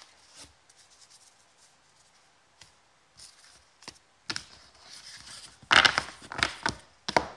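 Foil-wrapped trading card pack being handled and rustled, in a string of short crackly bursts starting about four seconds in and loudest near six seconds. A few light taps come before that.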